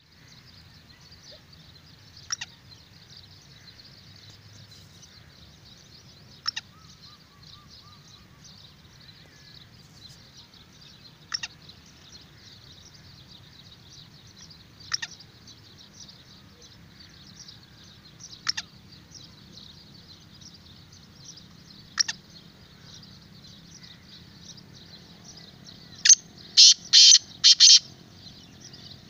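Black francolin calling: a run of about five loud, harsh notes in quick succession near the end. Before it come short single sharp notes every three to four seconds, over a steady high hiss.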